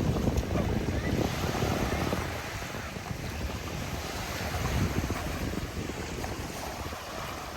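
Wind buffeting the microphone, with waves washing on the shore behind it.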